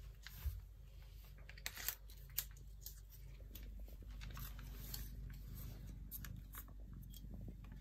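Wet cat food pouch being torn open and handled: a few sharp crinkly snaps in the first two and a half seconds, then soft rustling of the pouch.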